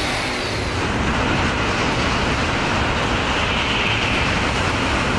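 Shinkansen bullet train passing through a station at high speed without stopping: a dense, steady rushing noise of air and wheels on rail that swells about a second in and holds.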